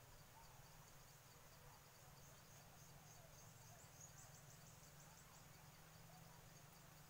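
Near silence in a forest, with faint insect chirping in an even pulse, about four chirps a second, and a brief faster trill about four seconds in; a few faint distant bird calls.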